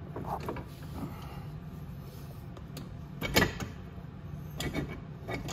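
Stock exhaust of a Venom x22R motorcycle knocking and rattling against the bike as it is worked into place to line up with the manifold. One sharp knock about three seconds in stands out over a steady low hum.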